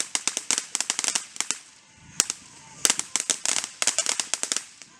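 A consumer firework giving off rapid runs of sharp crackling pops, with a short lull about two seconds in before another dense run.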